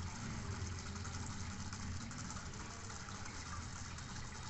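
Aquarium filters and air pumps running: a steady low hum under an even hiss of bubbling water.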